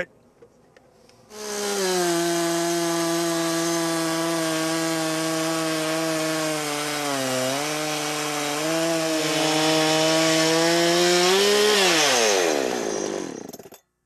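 Chainsaw on a Logosol Woodworker's Mill running hard as it rips lengthwise through a log. The steady high engine note starts about a second in and dips briefly about halfway through. Near the end the engine winds down in pitch, then stops abruptly.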